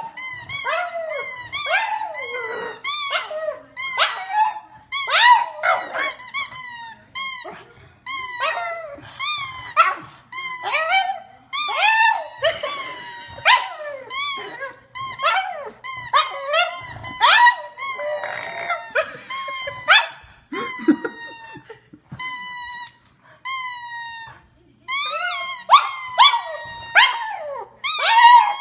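Pug whining in a long run of short, high cries, each falling in pitch, about two or three a second with brief pauses, as it begs for a rubber ball held just above it.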